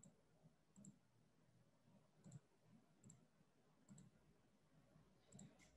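Faint, irregular clicks of a computer mouse, some in quick pairs, against near silence, while screen sharing is being set up.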